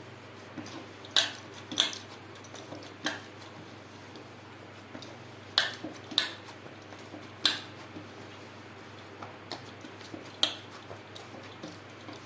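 Jowar (sorghum) flour dough being kneaded by hand in a plate: irregular sharp clicks and taps as hands and dough knock against the dish, about a dozen spread out with pauses between them.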